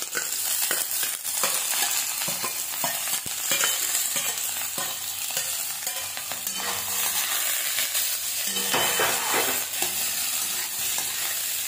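Sliced onions frying in hot mustard oil in a kadhai: a steady sizzle with scattered crackles, and a spatula stirring the onions near the end.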